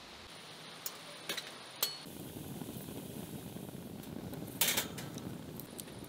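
A few small clicks and knocks at a steel box stove, then the steady low rush of a wood fire burning in it. About two-thirds of the way in, a short loud metal clatter of a steel camping kettle being handled on the stove's grill.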